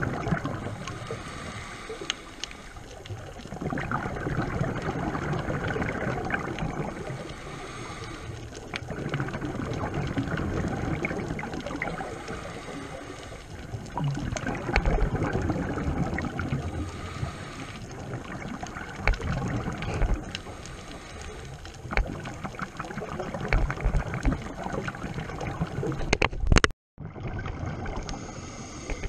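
Muffled underwater sound of a scuba diver's exhaled bubbles gurgling, swelling and fading every few seconds, with scattered small clicks and knocks. The sound cuts out for a moment near the end.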